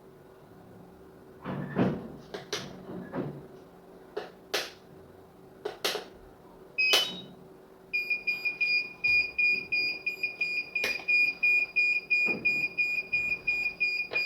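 Clicks and knocks of a cable being handled and plugged in, then a short electronic chirp, then a DJI Phantom 4 remote controller beeping rapidly and steadily, a high-pitched beep about four times a second.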